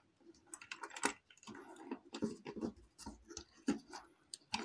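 Faint, scattered clicks and rustling of fingers handling a stripped copper wire and pushing it into a socket terminal on a plastic switch board.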